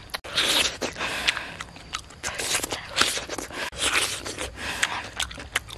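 Close-up eating sounds: crunchy bites and wet chewing, with the food torn and handled, in irregular bursts several times a second.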